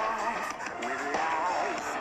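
Background music with a melody that bends in pitch.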